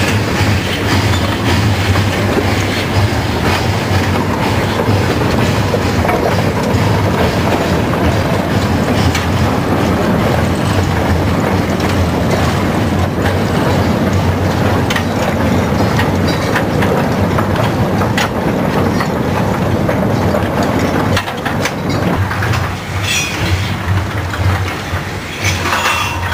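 A rake of empty steel sugar-cane wagons rolling on narrow-gauge track, wheels rumbling and clattering over the rail joints. The sound drops away near the end, leaving a few sharp clicks.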